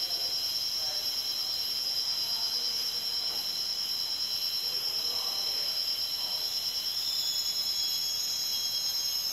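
Steady chorus of forest insects trilling at several high pitches at once. About seven seconds in, another, higher-pitched insect joins in.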